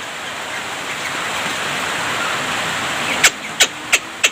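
A steady hiss for about three seconds, then four sharp, short, downward-sweeping calls from a Javan myna near the end.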